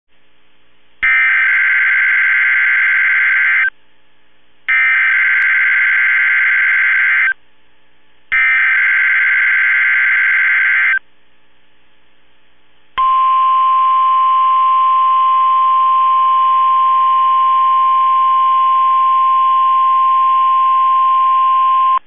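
NOAA Weather Radio Emergency Alert System tones: three bursts of SAME digital header data, each about two and a half seconds long with short gaps between, then the steady single-pitch warning alarm tone held for about nine seconds. Together they announce a tornado watch.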